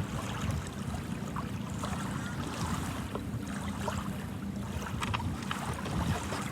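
Wind buffeting the microphone: a steady low rumble, with the hiss of the sea behind it and a few light ticks about five seconds in.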